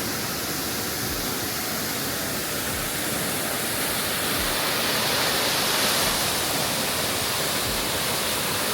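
Waterfall rushing steadily, a full, even roar of falling water with no break.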